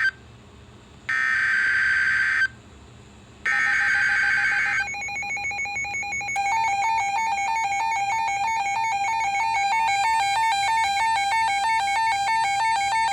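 Emergency Alert System SAME header on NOAA Weather Radio: harsh, buzzy bursts of digital data tones, the end of one and then two more of about a second and a half each, a second apart. About five seconds in, an electronic alert tone starts, warbling rapidly between two close pitches.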